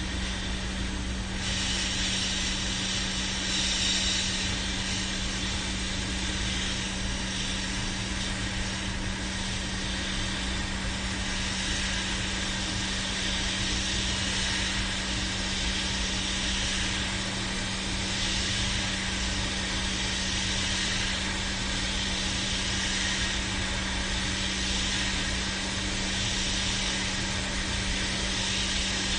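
Hot-air rework station blowing steadily, a constant airy hiss with a low hum underneath, as it heats a NAND chip to reflow its solder joints.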